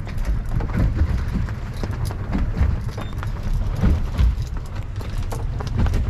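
Steady low rumble of a boat running on the water, with many irregular short knocks and clicks over it.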